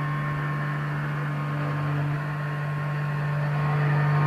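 Tormach PCNC 1100 CNC mill running, its end mill cutting a pocket in an aluminum block: a steady low hum with a constant higher whine over it.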